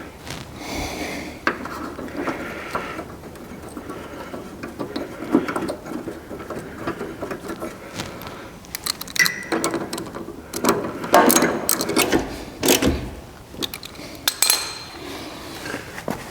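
Irregular clinks, knocks and rattles of metal car-door hardware and hand tools being handled while a car door is refitted, with a cluster of sharper clanks about nine to fifteen seconds in.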